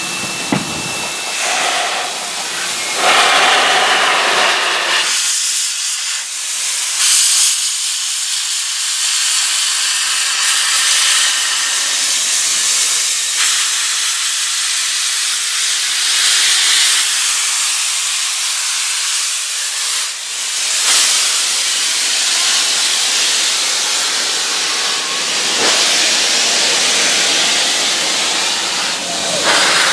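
Norfolk & Western J-class 611 steam locomotive blowing steam from its open cylinder cocks as it rolls slowly: a loud, steady hiss that swells in surges every few seconds.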